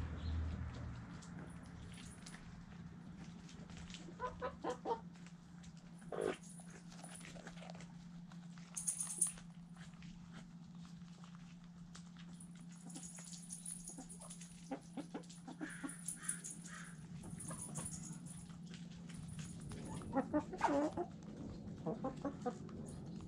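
Backyard chickens clucking in short scattered bursts, busiest near the end, over a low steady hum that stops about three-quarters of the way through.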